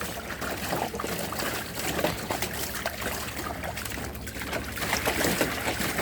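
Water trickling and splashing as an Airedale terrier wades in it.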